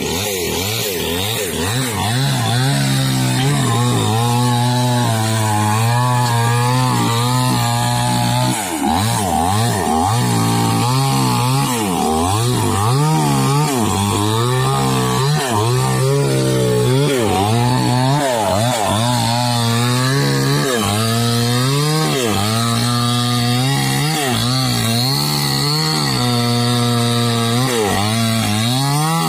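Small chainsaw engine running hard and cutting into a pulai tree trunk. Its pitch holds steady at first, then from about eight seconds in keeps sagging and picking up again as the chain bites into the wood.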